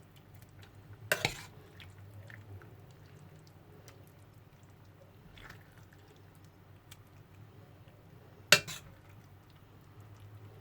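A serving spoon and dishes clinking while food is dished out: a sharp knock about a second in, a louder one about eight and a half seconds in, and small light ticks between.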